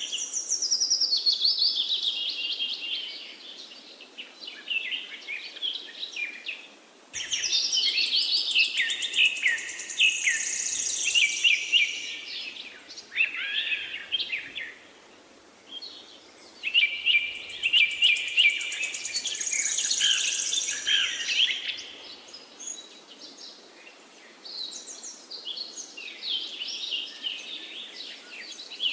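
Birds singing: a busy chorus of quick high chirps, trills and whistles in spells of several seconds, with brief lulls about five seconds in, around fifteen seconds in, and a quieter stretch near the end.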